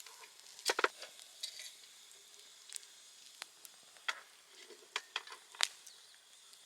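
Chestnuts being set out to roast over a wood campfire: irregular sharp clicks and crackles over a faint hiss.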